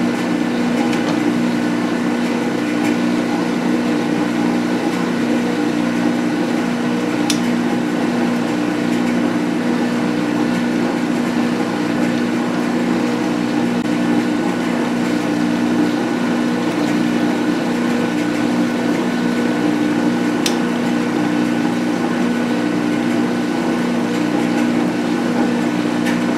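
Metal lathe running steadily during a single-point threading pass, a constant hum with several fixed tones from the motor and gearing. Two sharp clicks cut through it, one about a quarter of the way in and another about three quarters in.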